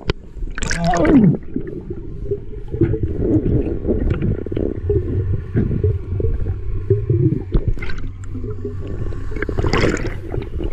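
Muffled underwater water noise picked up through a dive camera's housing: a low rumble throughout, a loud falling whine about a second in, and a faint steady high whine in the background. Near the end comes a rush of bubbles and splashing as the diver breaks the surface.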